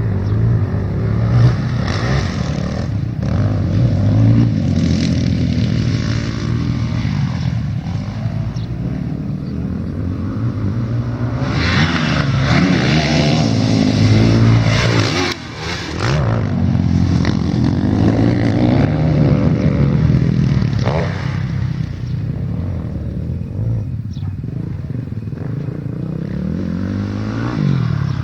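Off-road motocross motorcycle engine revving up and down over and over as it is ridden around the track, its pitch climbing and falling with the throttle. The engine drops off sharply for a moment about halfway through, then picks up again.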